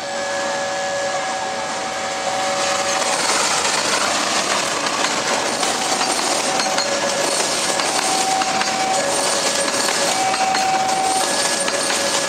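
Passenger train passing a level crossing: the noise of its wheels on the rails grows louder about two seconds in and carries on steadily. Over it a level-crossing warning signal alternates between two steady tones.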